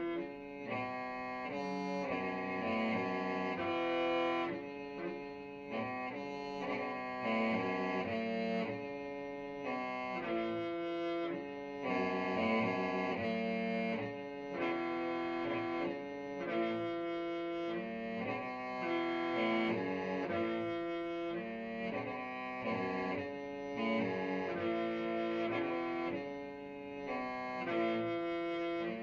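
Hmong qeej, a bamboo free-reed mouth organ, being played: a continuous reedy tune of several tones at once, with one held note coming back every two to three seconds.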